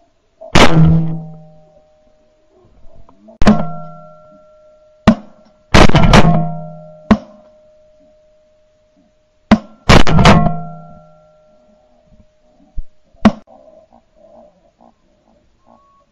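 Shotgun shots recorded from a camera mounted on the gun: about eight sharp reports, some in quick pairs, each ringing out for a second or more.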